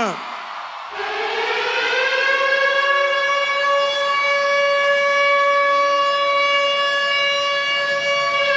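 Air-raid siren sound effect played over a concert PA as a show intro. A siren wail falls away at the start, and after a short dip a new wail rises about a second in and holds one steady pitch.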